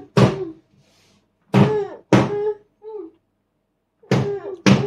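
A young child's high-pitched voice: short babbled syllables in a few quick groups, with pauses between them.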